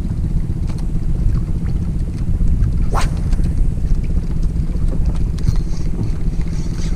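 Outrigger boat's engine running steadily, with a brief sharp swish about three seconds in.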